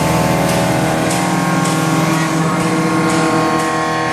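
CNC milling machine running a carbide end mill through a turbine blade: a steady machining whine with several held tones over a hiss, and a faint tick about twice a second.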